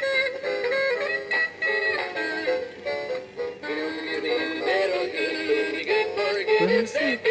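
Battery-powered jazz Santa animated toy playing a Christmas song through its small built-in speaker: an electronic tune with a synthesized singing voice.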